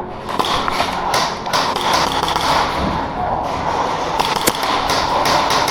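Airsoft gunfire in a game: irregular sharp cracks and thuds of shots and BB hits over a steady noisy background.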